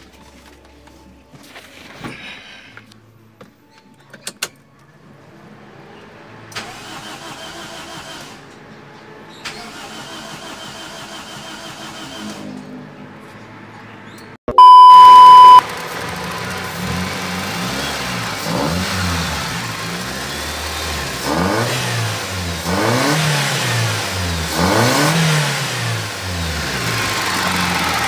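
Toyota car's four-cylinder petrol engine being started right after its cylinders were soaked with carburettor cleaner: the starter cranks in two long spells. After a loud steady beep lasting about a second, the engine runs and is revved up and down several times.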